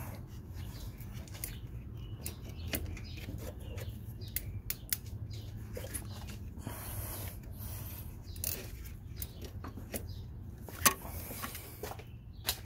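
Irregular small clicks and taps of hands and tools working around an alternator during removal, with one sharper knock about eleven seconds in, over a low steady hum.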